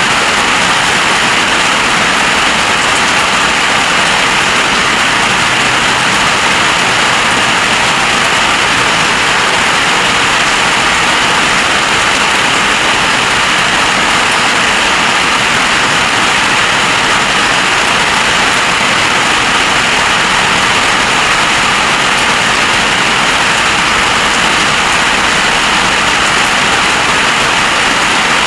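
Heavy storm rain pouring down: a loud, steady hiss that does not let up.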